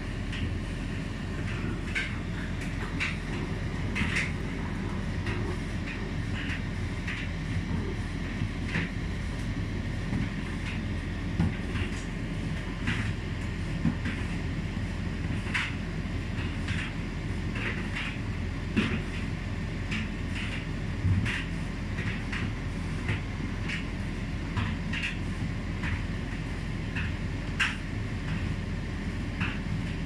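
Hotpoint Aquarius TCL770G condenser tumble dryer running its cool-tumble stage: the drum turns with a steady low hum and rumble, and irregular light clicks come through it.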